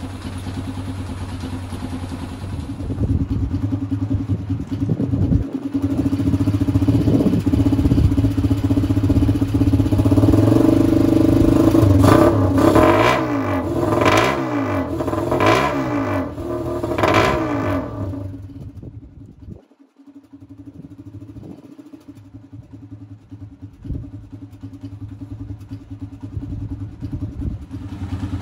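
Sazgar auto rickshaw's air-cooled engine idling, then revved in several short blips that rise and fall in pitch through the middle, before settling back to a quieter, steady idle. It is running again after winter storage.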